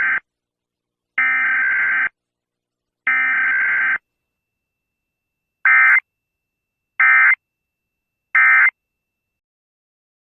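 Emergency Alert System SAME digital data bursts. Three header bursts of about a second each come evenly spaced, the first already under way. After a short pause, three shorter end-of-message bursts follow.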